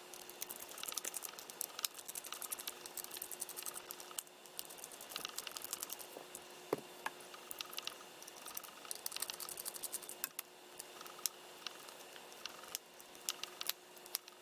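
Small Phillips screwdriver backing tiny screws out of a mobile phone's plastic back housing: faint clusters of quick clicks and scrapes from the bit turning in the screw heads, with one sharper click about seven seconds in.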